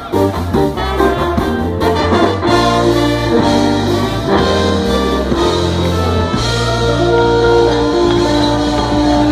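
Live ska band playing, led by a horn section of saxophones, trombones and trumpet over bass, drums and keyboard. The horns play long held notes in the second half.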